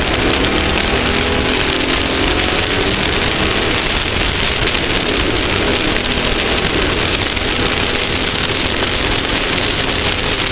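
Off-road race vehicle driving at speed, heard from a camera mounted on its front. The engine's note falls and fades about a second in, leaving a loud, steady rushing noise of wind and terrain.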